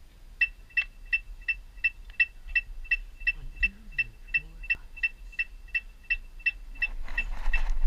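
Electronic metronome clicking a steady marching-band tempo, a short two-tone beep about every third of a second (roughly 170 beats a minute). A faint voice is heard briefly in the middle, and a wash of noise rises near the end.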